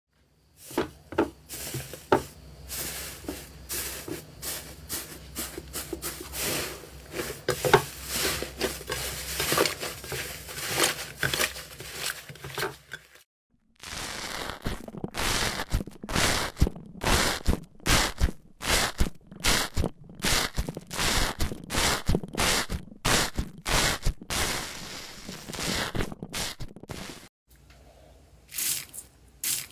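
Slime being squeezed and pressed by hand: dense crackling and popping over a low steady hum for about thirteen seconds, then, after a short break, a run of crisp separate pops and squishes about twice a second. Near the end, after another brief pause, softer crackles come back.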